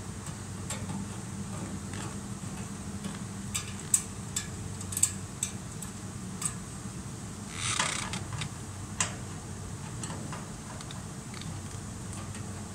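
Small steel parts and a screwdriver clinking and tapping as the homogenizer's pump head is taken apart: scattered sharp clicks, with a brief scraping rattle about eight seconds in, over a steady low hum.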